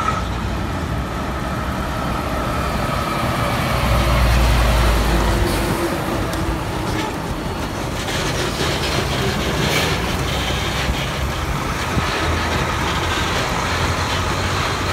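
Diesel tractor-trailer loaded with stacked crates of live chickens driving slowly past close by: steady engine and tyre noise, with a deeper engine rumble swelling about four seconds in.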